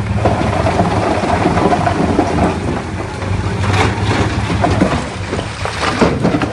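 Bulldozer's diesel engine running steadily under load, with rocks and soil crackling and grinding as they are pushed and tumble, and scattered sharp knocks of stones, busiest in the second half.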